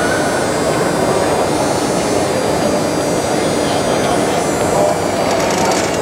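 Electric hydraulic pump of an E & P Level C caravan levelling system running steadily while it drives the hydraulic corner steadies down to lift and level the chassis, with people talking in the background.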